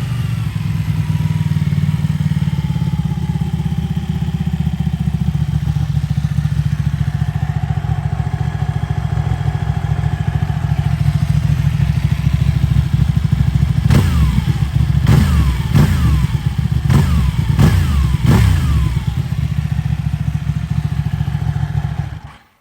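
Ducati 1199 Panigale's 1198 cc Superquadro L-twin running through a Termignoni exhaust: a steady, deep, bassy idle, then about six quick throttle blips, each falling back to idle. The engine is then switched off and cuts out suddenly near the end.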